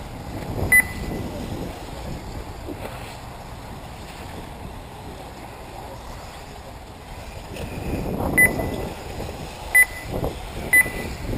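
Short high-pitched electronic beeps from the race's lap-timing system as 1/8-scale electric buggies cross the line: one about a second in and three more near the end. Under them, wind noise on the microphone and the faint running of the buggies on the track, which grows louder near the end.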